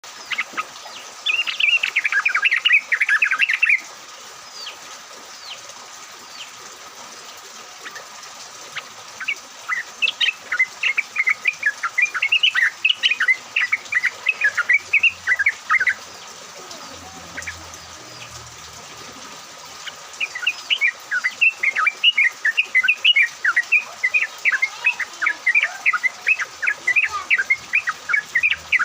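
Sooty-headed bulbuls (trucukan) singing: bouts of quick, bubbly chattering notes that come in three stretches, with short gaps between them.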